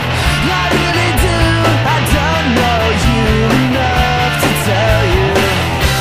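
Rock music soundtrack: a driving drum beat and bass under a sliding, wavering lead melody.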